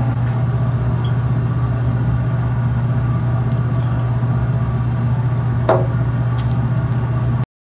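Laboratory fume hood's exhaust fan running with a steady low hum, overlaid by a few light clicks and knocks from handling a glass volumetric flask as it is sealed with parafilm and tipped to mix. The sound stops abruptly near the end.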